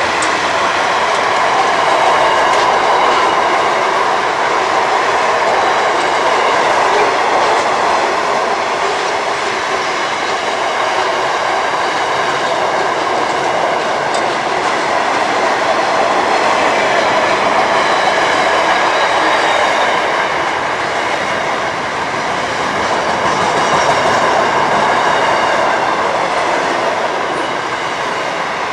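A train passing close by on the track: a loud, continuous noise of steel wheels running on rail that eases slightly near the end.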